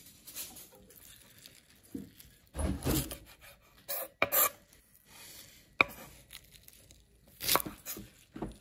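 Kitchen knife cutting through a bundle of garlic chives on a wooden chopping board: irregular slicing strokes and knocks of the blade on the wood, the sharpest a little before the middle and about two-thirds of the way in.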